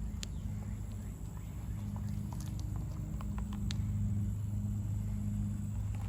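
Small-scale RC rock crawler driving over rock: a steady low motor hum, with scattered clicks and ticks from the tyres and chassis knocking on the rock.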